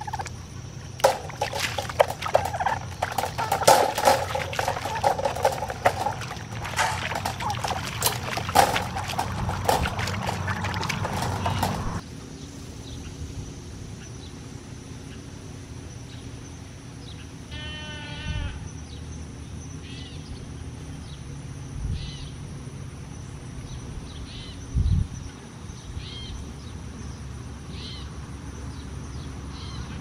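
Domestic turkeys gobbling and calling in rapid, dense bursts for about eleven seconds, then cutting off suddenly. After that, quieter outdoor background with a single wild bird's trill and a few faint chirps.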